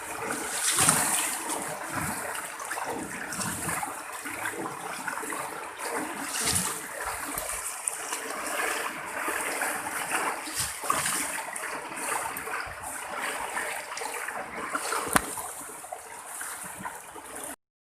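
Fast-flowing floodwater rushing and splashing in a strong current, a continuous wash with irregular swells, cutting off suddenly near the end.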